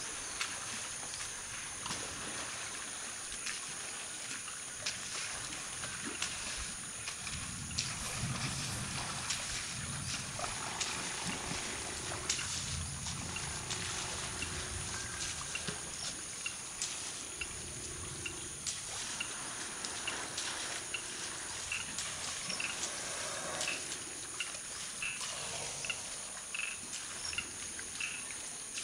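Forest elephants drinking and sloshing in a shallow mineral pool: water trickling and splashing with scattered clicks. Behind it runs a steady high insect drone, with low rumbling in the first half and a short high chirp repeating about once a second through the second half.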